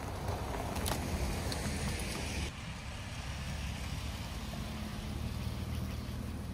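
Toyota 4Runner SUV driving by slowly on a paved road: low engine hum with tyre noise that swells as it approaches. The sound drops abruptly about two and a half seconds in, leaving a steadier low engine hum as the SUV pulls away.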